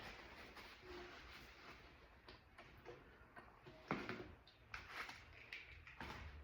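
Faint rubbing and a few light clicks from a rag wiping a plastic door panel clean with acetone.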